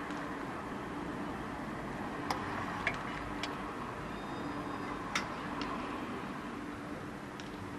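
A car on fire, heard from across a parking lot: about half a dozen sharp pops and cracks at irregular intervals over a steady rushing background with a low hum.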